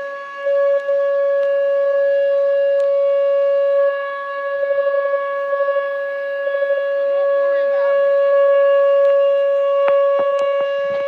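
Whelen WPS 2807 electronic outdoor warning siren sounding a loud steady tone at one pitch. Its loudness flutters rapidly for a couple of seconds midway.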